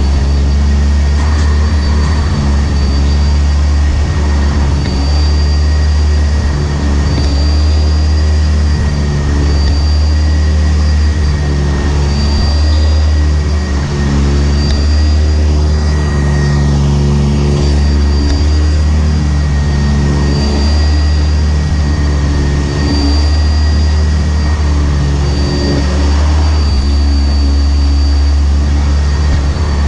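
Sanitaire SC679j upright vacuum cleaner running steadily, heard from a camera mounted on the machine. A constant high motor whine sits over a heavy low drone that wavers in pitch as the vacuum moves.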